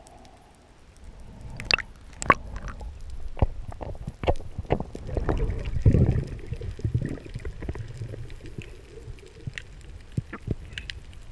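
Underwater sound of a diver swimming down: low rushing and rumbling of water with many scattered sharp clicks and knocks, swelling loudest around the middle.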